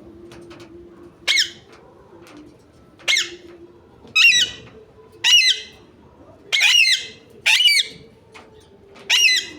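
Pet parrot squawking: seven short, loud calls, each starting sharply, spaced about one to two seconds apart.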